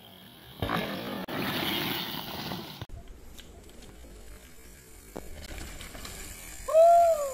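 Mountain bike tyres rolling and skidding over dry dirt for about two seconds, cutting off abruptly. A few faint freehub clicks follow. Near the end comes a short, loud whoop that rises and falls in pitch.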